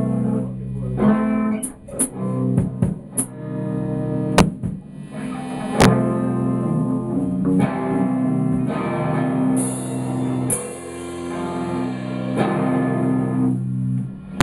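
Punk rock played on a loud electric guitar: sustained chords, with a few sharp crash hits, stopping near the end.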